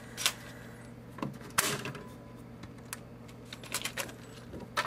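A thin flexible vinyl sound sheet (flexi-disc) being handled and set down on a turntable: scattered clicks and crinkles as the sheet flexes and taps, the loudest about a second and a half in, over a low steady hum.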